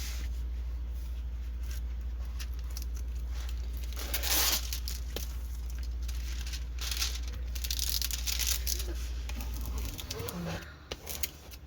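Plastic packaging of a diamond painting kit crinkling and rustling as it is handled, with the loudest rustle about four seconds in. A steady low hum runs underneath and stops near the end.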